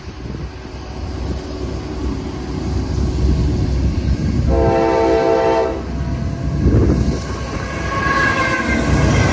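Diesel coal train approaching at full speed with a growing low rumble. The locomotive sounds one horn blast of just over a second about halfway through. Then it passes close by with loud wheel and rail noise.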